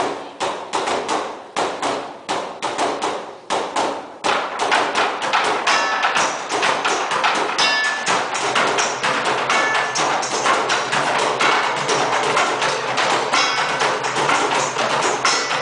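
Percussion ensemble beating a fast rhythm on drums and plastic buckets. The strokes are spaced out with short gaps for the first few seconds, then run together into a denser, continuous beat.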